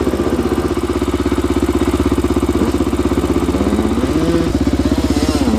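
Dirt bike engine idling steadily close to the microphone, a fast even pulse. Near the end a second bike's engine revs, its pitch rising and wavering.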